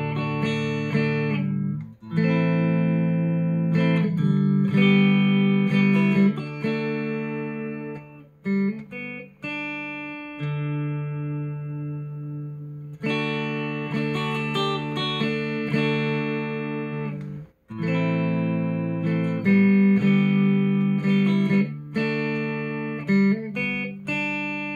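Clean electric guitar playing chords and single notes through an IR loader pedal running a Celestion Greenback speaker-cabinet impulse response. It plays in phrases with short breaks between them.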